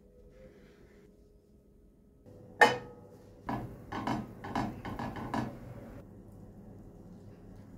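Wooden chopsticks knocking and scraping against a nonstick frying pan as a pat of butter is pushed around to melt. There is one sharp clack a little before three seconds in, then about six quicker knocks over the next two seconds.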